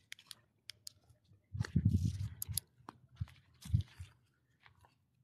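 Scattered crunches and clicks close to the microphone, with two short rustling bursts about one and a half and three and a half seconds in.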